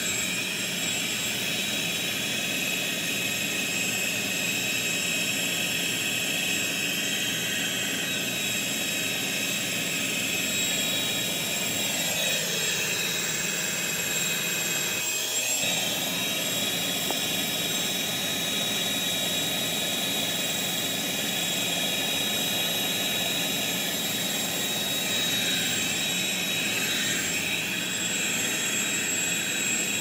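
Stick vacuum cleaner running on carpet: a steady motor whine with airflow rush. Its pitch dips and climbs back about halfway through.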